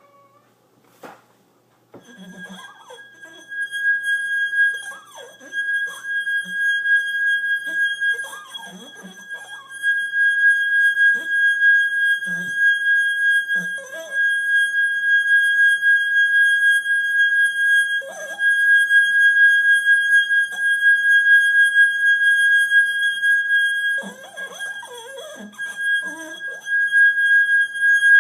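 A steady high-pitched tone at one unchanging pitch starts about two seconds in and holds with hardly a break. Short, fainter sounds come and go beneath it at irregular intervals.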